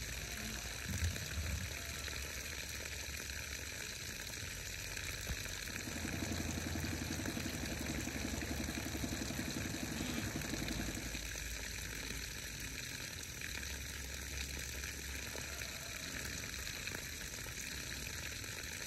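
Steady hiss of water spraying from a garden hose during deep watering, with a couple of soft knocks about a second in.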